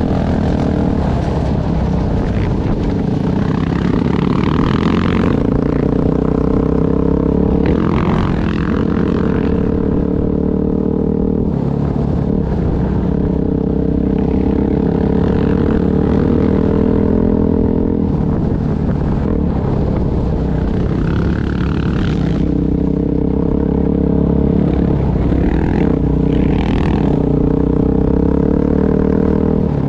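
Off-road vehicle's engine running steadily under way, heard close from the machine itself, with its pitch shifting a little now and then. Wind and rushing noise over it come and go in louder stretches.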